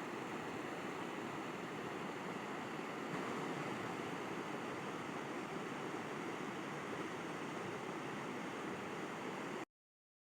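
River water rushing steadily. About a second before the end it cuts out abruptly to dead silence.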